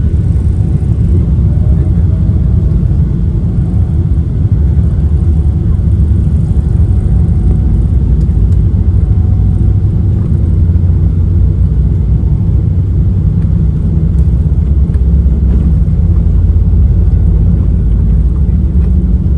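Loud, steady low rumble of a Boeing 777's engines and airframe heard from inside the passenger cabin.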